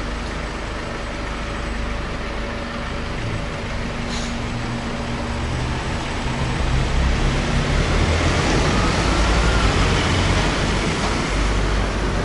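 Road traffic on a busy city street, with double-decker buses running close by. It grows louder about halfway through and eases off near the end.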